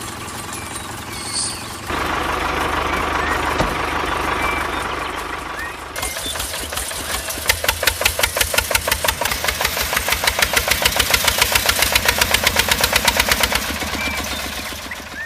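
Small engine running. About a third of the way in it gets louder, then settles into a rapid, even knocking of about six beats a second before fading near the end.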